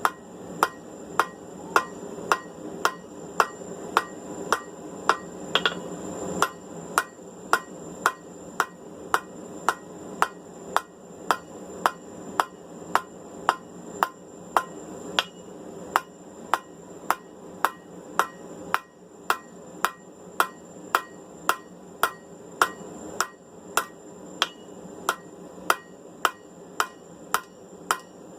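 Blacksmith's hand hammer striking hot steel on an anvil at a steady pace of about two blows a second. The square tong rein is being forged down to eight sides, the first step in rounding it.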